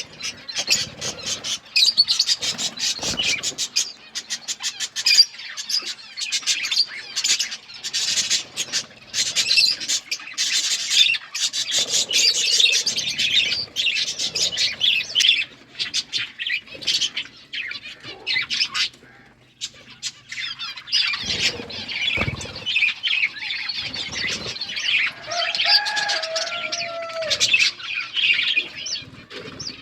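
Budgerigars chattering and chirping rapidly and continuously, with a short lull a little past the middle and a few low thumps.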